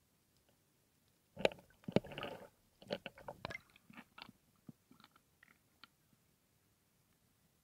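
Water splashing and crackling against an action camera's waterproof housing as it breaks the sea surface: a burst of sharp splashes and pops about a second and a half in, thinning to scattered drips and ticks that die away about six seconds in.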